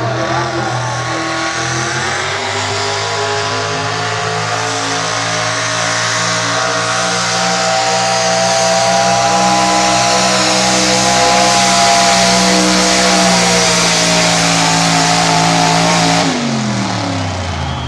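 A pulling pickup truck's engine held at full throttle under load as it drags a weight sled, its pitch climbing slowly over the first several seconds and then holding steady. About sixteen seconds in the revs fall away sharply as the throttle comes off.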